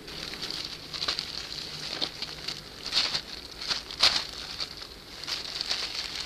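Blue plastic sheet being handled, crinkling and rustling irregularly, with sharper crackles about one, three and four seconds in.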